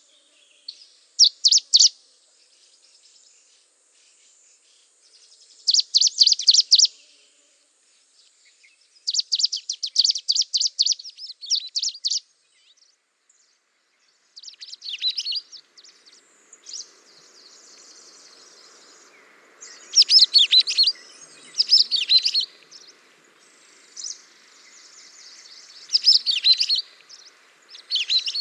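Small songbirds chirping in quick high trills, in short groups with pauses between them. About halfway through, a faint steady hiss joins underneath.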